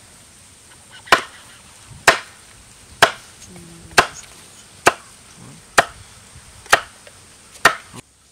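Food being chopped with a blade: eight sharp, evenly spaced chops, about one a second.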